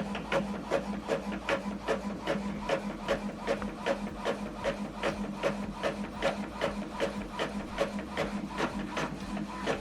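Epson WorkForce WF-2910DWF inkjet printer printing a page: the print head shuttles back and forth, making about three regular ticks a second over a steady motor hum.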